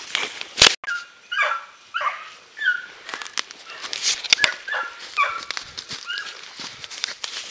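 Young Beagle Harrier hounds giving voice: short, high yelping cries, several falling in pitch, repeated about once a second, the hunting cry of scent hounds on the trail. Sharp cracks and rustles of leaves and brush are mixed in.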